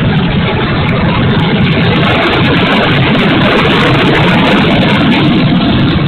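Steady rush of wind over an FMS B-25 Mitchell RC model in flight, mixed with the drone of its two electric motors and spinning propellers.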